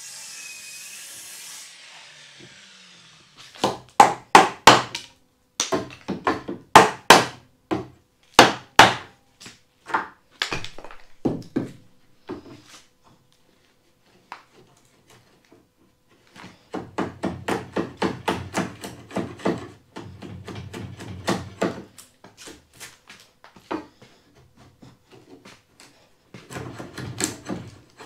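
Wooden mallet striking a chisel to chop the waste out between saw kerfs on a timber tenon: sharp wooden knocks in quick groups, then, after a pause, a longer run of faster, lighter knocks.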